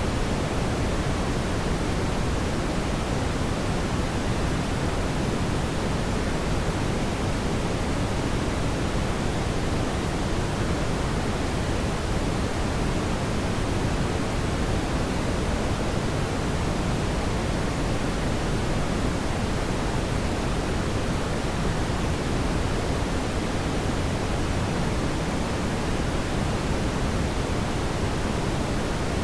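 Fireplace fire burning with a steady, even rushing hiss and no distinct pops.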